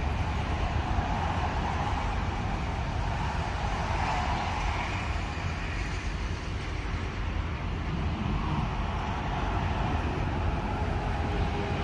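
Steady noise of highway traffic with a low rumble, swelling and easing now and then as vehicles pass.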